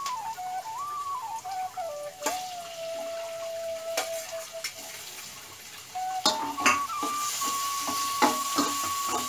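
Metal spoon clinking on a steel plate and pan as tomatoes and greens are tipped into frying onions; from about six seconds in, the pan sizzles and the spoon taps and scrapes quickly as the mix is stirred. A soft instrumental melody plays throughout.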